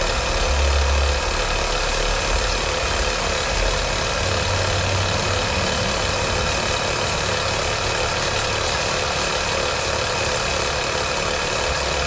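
A motor running steadily, a constant mechanical hum with a low rumble that swells briefly about half a second in and again around four to six seconds in.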